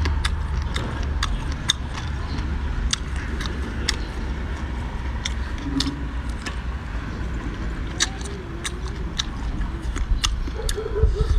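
Close-miked chewing of spicy boneless chicken feet: irregular wet mouth clicks and smacks over a steady low rumble.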